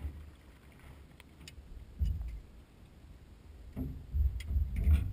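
Wind buffeting the microphone in uneven gusts, growing much stronger near the end, with a few light clicks and knocks from gear being handled in an aluminum boat.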